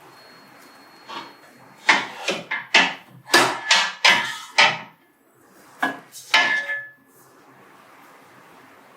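Printer parts and tools being handled: a quick run of about a dozen knocks and metallic clinks, a few ringing briefly, between about one and seven seconds in.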